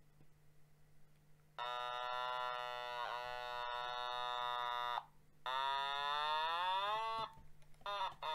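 An Otamatone electronic toy synthesizer sounding a buzzy held note that starts about a second and a half in and stays on one pitch for about three and a half seconds. After a short break, a second note slides upward in pitch, and a brief note follows near the end.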